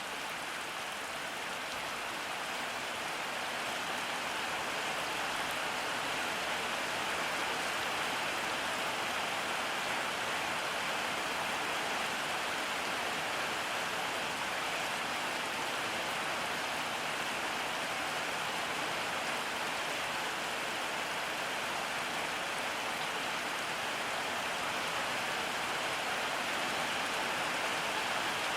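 Steady rain falling, an even hiss of rain on surfaces with no break or change in intensity.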